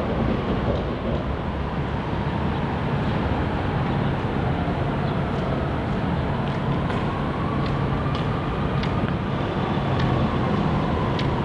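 Steady low rumble of city traffic and rail-yard ambience, with a faint whine that wavers slowly in pitch, rising for a few seconds in the middle, and a few scattered light clicks.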